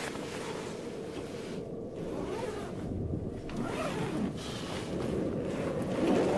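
Nylon tent fabric and clothing rustling as someone shifts about inside a small tent, with a zipper being pulled, over a steady low background rumble. The rustling comes in irregular bursts and grows louder toward the end.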